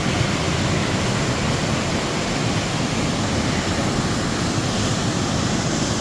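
Bridal Veil Falls and its creek in heavy winter flow, about two or three times their usual water: a steady rush of falling and running water.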